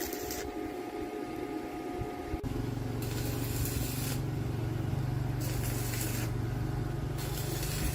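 A motor starts humming about two and a half seconds in and runs steadily, with three bursts of hissing spray over it.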